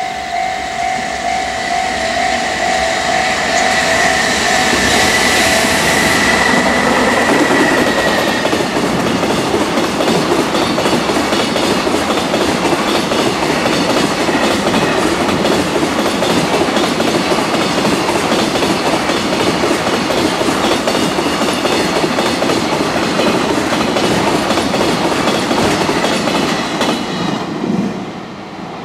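A level-crossing warning bell rings in steady pulsing strokes as a JR Freight electric container train approaches. The train then passes at speed: a loud, dense rush of steel wheels on rail with rapid clatter over the rail joints, which drops away sharply near the end as the last container wagon clears the crossing.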